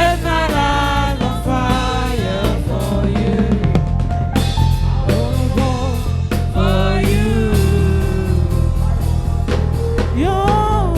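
Gospel worship music: a singing voice over a steady band beat with drums.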